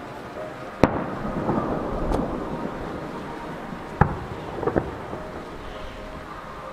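Aerial firework shells bursting: a loud sharp bang about a second in, a fainter one near two seconds, another at four seconds and a quick double bang just after. Each bang is followed by a long rolling rumble.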